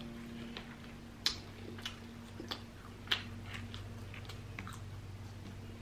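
Close-miked eating sounds of a rotisserie chicken, chewed and pulled apart by hand, with scattered sharp wet clicks, the two loudest about a second and three seconds in. A low steady hum sits underneath.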